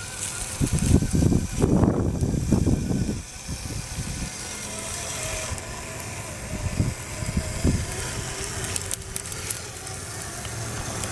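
SCX10 RC crawler on Evo Predator tracks climbing a dirt slope: a faint wavering electric motor and gear whine with rattling of the track units. Loud low buffeting in the first three seconds, and a few sharp clicks about nine seconds in.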